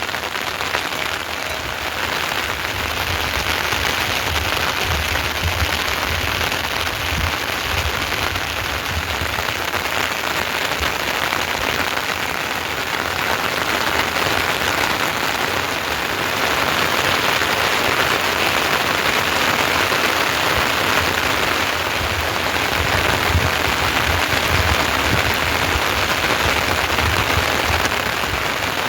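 Heavy rain falling steadily: a dense, even hiss of drops on surfaces that holds at the same level throughout.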